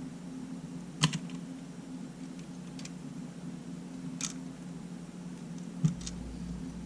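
A few short sharp clicks and taps from small parts and tools being handled while working on a disassembled Sony A7 camera. The loudest come about a second in and just before six seconds, with fainter ones between. A steady low hum runs underneath.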